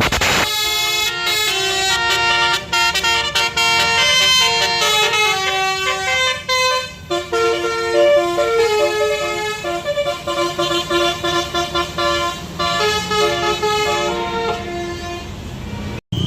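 Indonesian tour bus's telolet horn, a multi-tone musical air horn, playing a melody of stepping horn notes, often several sounding together. It stops a little before the end.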